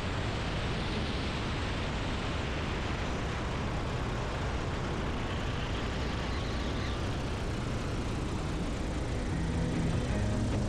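Steady rush of wind and engine noise from a Cessna 172 with its four-cylinder engine running, moving fast along the runway, heard through a camera mounted outside the airframe under the wing.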